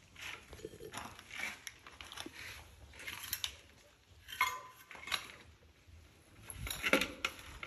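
Irregular light clinks and knocks of tools and equipment being handled and set down, with a louder clatter near the end.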